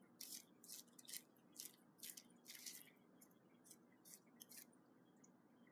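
Cat licking mover's stretch plastic wrap: a run of faint, short rasps of tongue on plastic, several a second, thinning out and stopping about four and a half seconds in.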